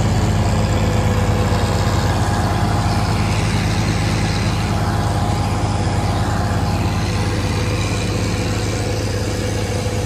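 Combine harvester running steadily at working speed: a loud, even engine hum with a steady whine of machinery over it.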